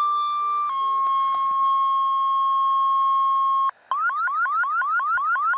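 Indoor warning system alert tones sounding as the attention signal before a test announcement. A steady tone steps down slightly in pitch under a second in and holds for about three seconds, then after a brief break comes a fast run of rising chirps, about four or five a second.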